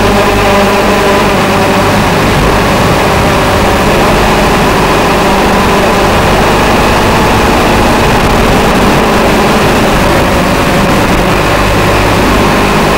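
TBS Gemini mini hexacopter's electric motors and propellers whirring in flight. Several tones drift up and down together as the throttle changes, over a steady hiss.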